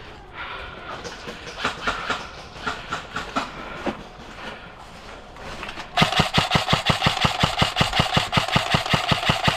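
Scattered clicks and knocks, then about six seconds in an airsoft rifle fires a long full-auto burst of about eight shots a second, lasting nearly four seconds.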